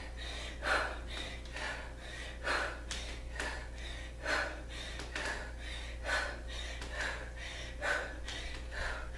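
A woman breathing hard through repeated kettlebell squats. A strong, sharp exhale comes about every two seconds with quieter breaths between them, over a steady low hum.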